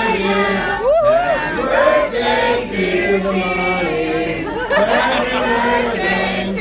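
Several voices singing together, with many overlapping vocal lines.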